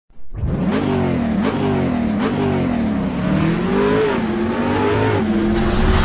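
Car engine revving, its pitch climbing and dropping several times in quick succession, then holding steadier near the end.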